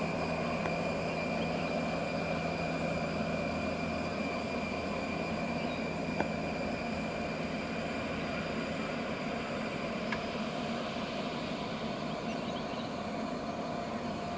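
Jet airliner engines running steadily at a distance: an even rumbling hiss with a steady high whine over it.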